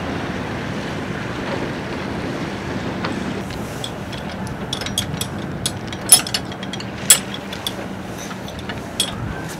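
Sharp clicks and clinks of the stainless forestay turnbuckle and toggle being handled and lined up at the bow's stemhead fitting, starting about three and a half seconds in, the loudest a little after six and seven seconds, over steady wind noise on the microphone.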